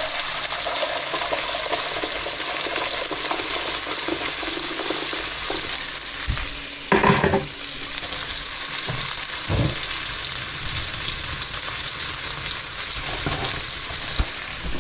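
Hungarian smoked bacon and chopped garlic sizzling in a frying pan, a steady hiss, with a couple of short knocks midway.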